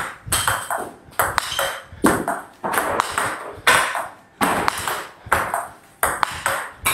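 Table tennis rally: the ball clicks off the rubber-covered paddles and bounces on the table in a steady back-and-forth, about two hits a second.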